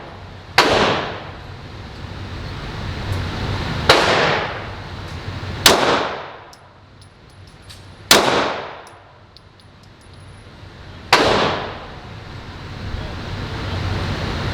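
Glock pistol fired five single shots at an unhurried pace, about one to three seconds apart, each crack ringing out in the echo of an indoor range.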